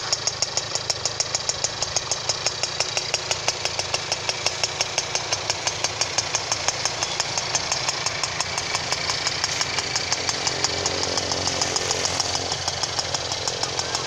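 Yamaha V-series two-stroke single-cylinder moped engine running at idle, a steady, even pulse of exhaust beats.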